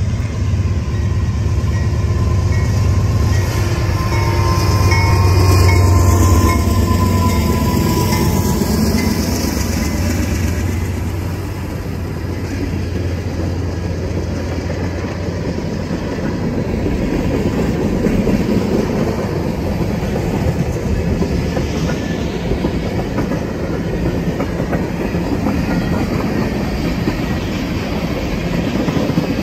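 Norfolk Southern freight train passing: its diesel locomotives' engines drone loudly for the first ten seconds or so. The sound then eases to a steady rumble as tank cars roll by, their wheels clicking over the rail joints.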